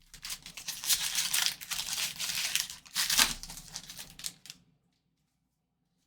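Crinkling and tearing of a trading-card pack wrapper being ripped open by hand. It lasts about four and a half seconds and stops suddenly.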